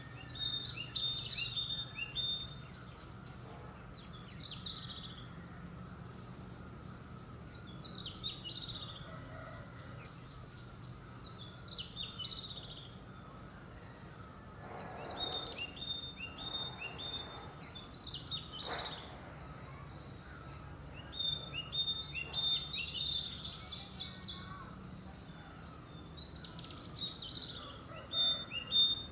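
A songbird singing the same high, trilling phrase over and over, a few seconds apart, over a steady low hum.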